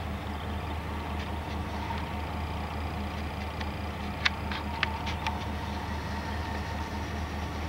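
A steady low mechanical hum, with a quick run of five or six sharp clicks about four to five seconds in.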